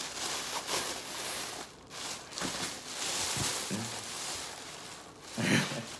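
A thin plastic takeout bag rustling and crinkling as it is untied and pulled open by hand, with a brief vocal sound from the man near the end.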